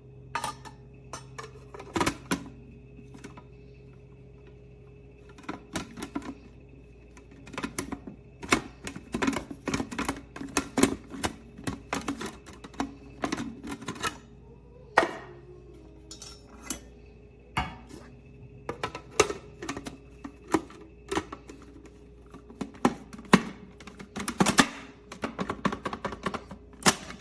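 Irregular plastic clicks and snaps from a Black & Decker 8-cup food processor's buttons being pressed and its parts being handled, some clicks coming in quick runs. The motor never starts: the buttons just click and the machine stays dead.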